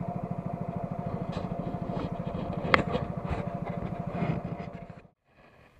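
Small longtail boat engine (ketinting) running with a steady fast pulse, with one sharp knock near the middle. Near the end it is switched off and runs down to a stop within about half a second.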